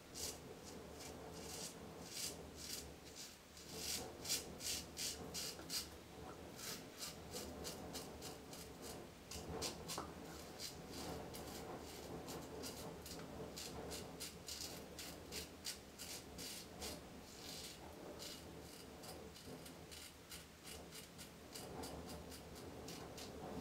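RazoRock Black Hawk razor scraping through lathered stubble in runs of short, quick strokes, each pass a faint rasping scratch.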